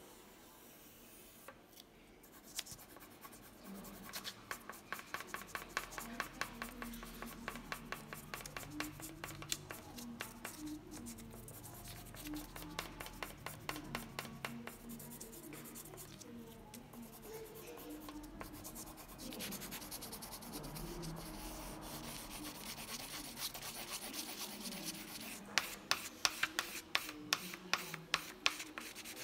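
Colored pencil scribbled rapidly back and forth on paper to shade in a broad area. The scratchy strokes come several a second in long runs, starting a couple of seconds in, and are sharpest near the end.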